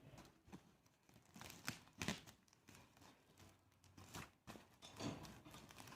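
Faint, scattered rustles and light taps of a sack being handled and folded, a few slightly louder about two seconds in and near the end.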